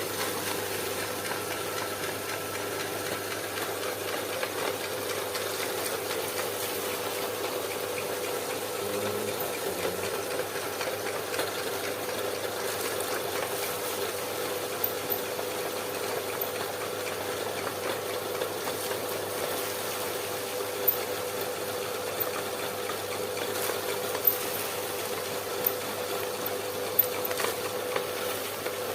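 Homemade meat grinder driven by an electric motor through a belt and pulley, running steadily with a constant hum while grinding peanuts. A few sharp clicks stand out in the second half.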